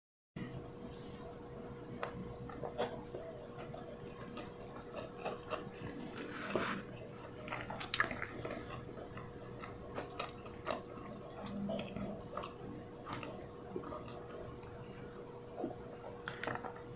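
Close-up eating sounds: chewing rice and fried chicken, with irregular wet mouth clicks and smacks, and fingers picking through the rice. A faint steady hum lies underneath.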